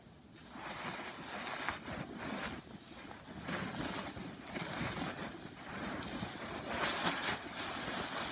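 Snowy outdoor soundscape: a rushing, wind-like noise that comes in about half a second in and swells and fades, with scattered sharp clicks and crackles through it.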